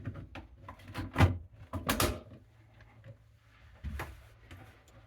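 Handling sounds from thermostat work: a run of clicks and knocks, loudest about one and two seconds in, with another knock near four seconds.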